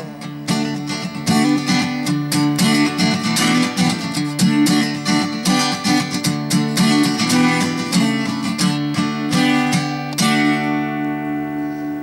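Acoustic guitar strummed in quick rhythm as the song's closing instrumental, ending about ten seconds in on a final chord that rings out and fades.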